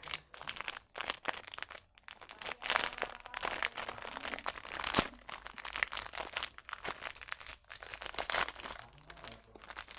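Plastic wrapper of a Skyflakes cracker packet crinkling and crackling as it is handled and opened, with a sharp snap about halfway through.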